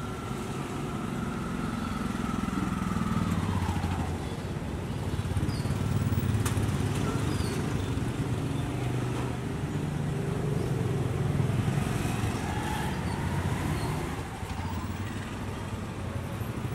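Motorbike engines running in street traffic, growing louder as bikes pass close twice, with a whine that falls and later rises again. A few light clicks sound among them.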